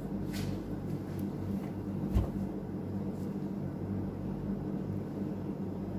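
Steady low hum of a running household appliance, with a few light taps and one soft knock about two seconds in.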